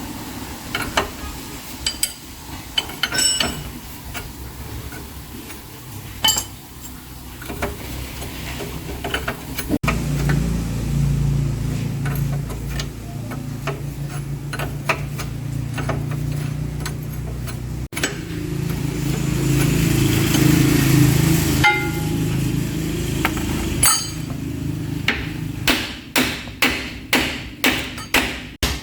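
A hammer striking metal during repair work on a differential gear set: scattered single blows at first, a steady low hum through the middle, then a quick, even run of hammer blows near the end.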